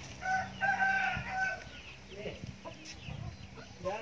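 Rooster crowing once near the start, a held call in three linked parts lasting about a second and a half, followed by short scattered clucks from the flock.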